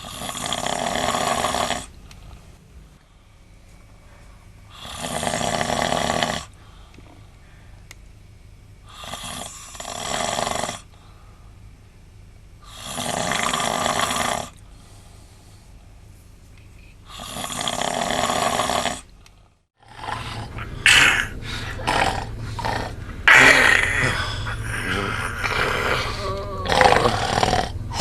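A man snoring heavily in his sleep: five long snores, one about every four seconds. After a brief cut, about twenty seconds in, a louder, choppy, irregular noise takes over.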